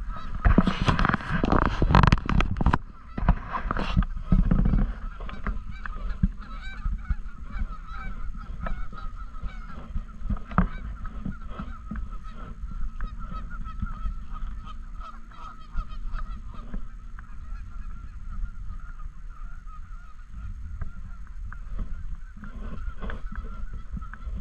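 A flock of Canada geese honking, many birds calling at once in a continuous chorus, loudest in the first few seconds.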